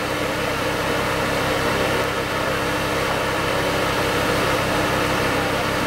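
Off-road 4x4 engine idling steadily, with an even low pulsing.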